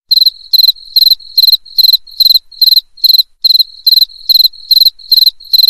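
Cricket chirping: loud, evenly spaced chirps a little over two a second, with a faint steady trill at the same high pitch between them, starting abruptly.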